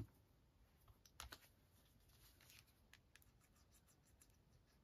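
Near silence with a few faint light taps and scratches of small cardstock pieces being handled and pressed down, the clearest tap about a second in.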